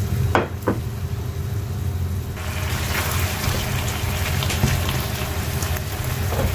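Baby squid and onions sizzling in sauce in a nonstick frying pan, stirred with a spatula, over a steady low hum. Two short clicks come under a second in, and the sizzle grows stronger a little over two seconds in.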